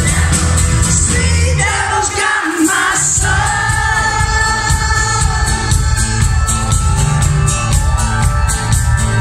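A live rock band playing: a woman sings lead over guitar, bass and drums. The bass and drums drop out for about a second around two seconds in, then come back in.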